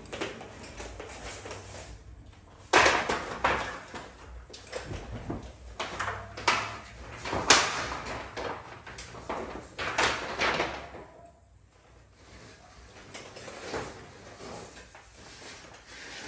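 Knocks and clatter from a fiberglass stepladder being handled and moved, a string of sharp impacts with the loudest about three seconds in.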